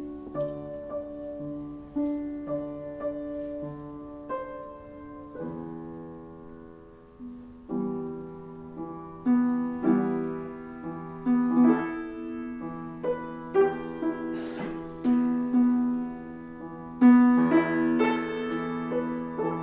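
Slow, gentle piano music: chords and single notes struck one after another and left to ring, with a fuller, louder chord near the end.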